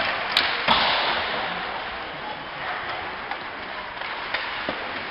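Ice hockey play heard from the stands of a rink: two sharp clacks of stick and puck about half a second in, the second the loudest and echoing in the arena, then a steady arena hubbub with a few fainter clicks.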